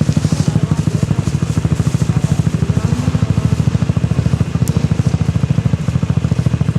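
Sport ATV engine idling close by, with a steady, even chug.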